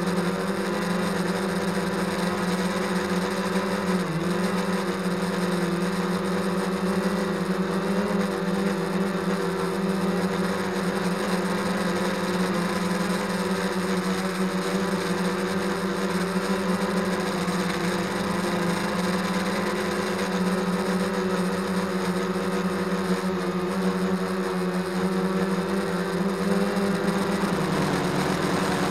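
Multirotor camera drone flying, its motors and propellers giving a steady whirring hum, with a brief dip in pitch about four seconds in and a slight shift near the end.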